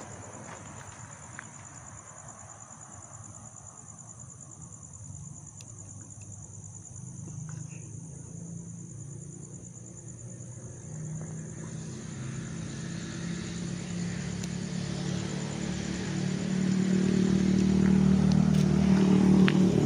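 A road vehicle passing by, its engine hum and tyre noise growing steadily louder through the second half and peaking near the end.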